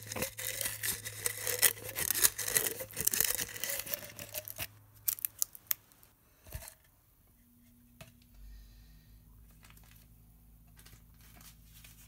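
Dry bay leaf being crumbled and crushed by hand: a dense, crisp crackling for the first four to five seconds, then only a few scattered crackles.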